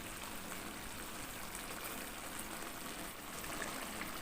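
Chicken and spice paste simmering in its own broth in a pan: a steady, even bubbling hiss.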